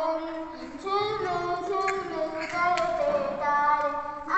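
A child singing a tune in held notes that step up and down in pitch.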